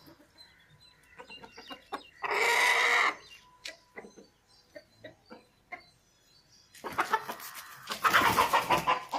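Animal calls: one loud, drawn-out call about two seconds in, then a longer run of rapid pulsed calls near the end, with scattered small ticks between.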